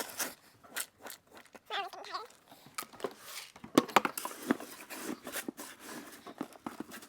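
Feed being scooped and handled: scattered clicks, knocks and rustles of grain, scoops and containers, the sharpest knock about four seconds in. A brief wavering pitched call sounds about two seconds in.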